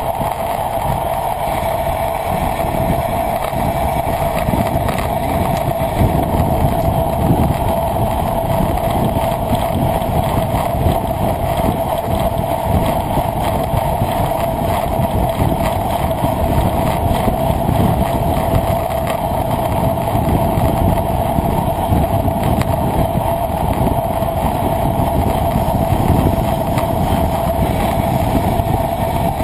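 Steady wind and road noise on a camera moving at speed, with a constant mid-pitched hum.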